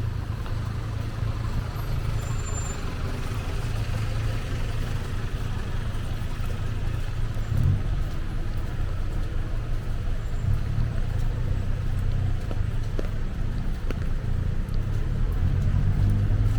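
Street traffic noise: a steady low rumble of passing vehicles with a faint hiss of road noise, swelling briefly about halfway through and again near the end.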